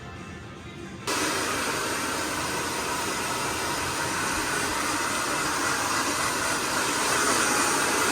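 Handheld hair dryer blowing: a steady, airy rush that starts abruptly about a second in and holds level.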